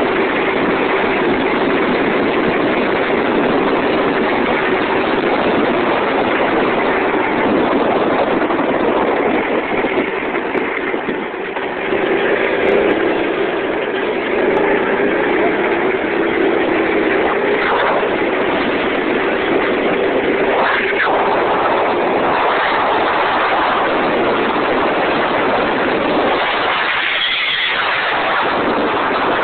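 Go-kart's Predator small engine running at speed, driving through a torque converter. The engine note dips briefly about ten to twelve seconds in, then picks back up.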